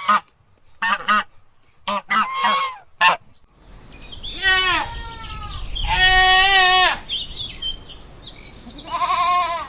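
Short, clipped honks from a goose in quick pairs over the first three seconds, then a goat bleating: two long, wavering bleats falling in pitch, and a shorter bleat near the end.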